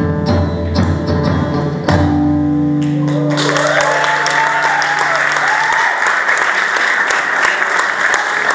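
A song ends on a few hand-drum strokes and a held final chord with acoustic guitar, then audience applause breaks out about three seconds in and carries on, with a few calls over the clapping.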